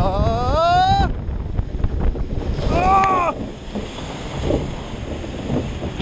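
Rider whooping twice on a log flume drop, a rising cry in the first second and a shorter arched one about three seconds in, over heavy wind buffeting the microphone. Water rushing and splashing around the boat as it runs out at the bottom.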